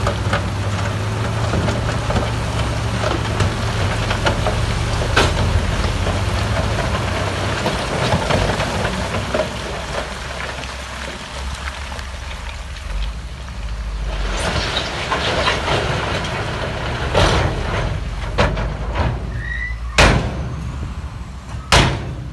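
Heavy diesel earthmoving machinery running, its low engine drone easing off in the middle and building back up, with scattered clanks and two sharp bangs near the end.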